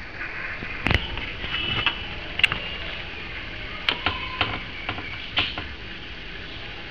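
A mother cat and her newborn kittens in their nest: a scattering of sharp, irregular clicks and a few brief, thin high squeaks.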